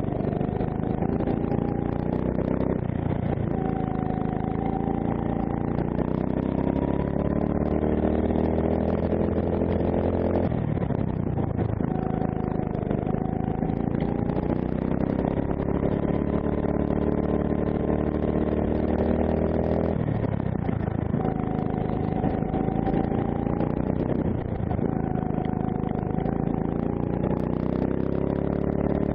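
D&M 270cc four-stroke kart engine under full load on a lap: its pitch climbs steadily down each straight, then drops sharply four times as the throttle is lifted for the corners, and climbs again.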